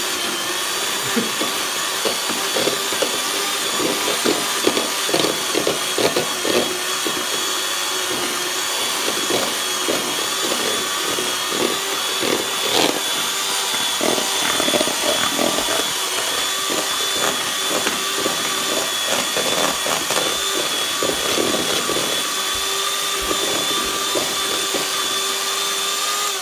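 Electric hand mixer running steadily at one speed, its motor whining while the metal beaters knock irregularly against a plastic bowl as they break up cream cheese that is still cold from the fridge and crumbling rather than creaming.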